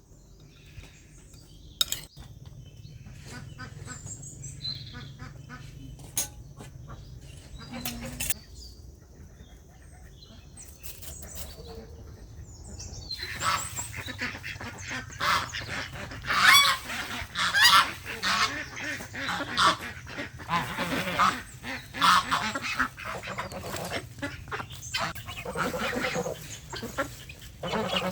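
Scattered clicks and knocks at first, then from about halfway a flock of farm poultry calling loudly, many calls overlapping.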